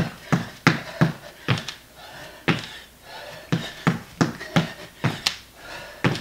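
Feet striking the floor during high knees and sumo squat jumps: a rapid run of thuds, about two to three a second, with a few heavier landings among them.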